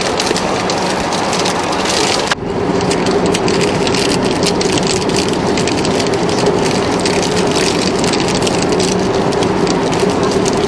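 Steady loud cabin roar of an Airbus A380 in flight, with the crinkle of a plastic snack wrapper being opened by hand.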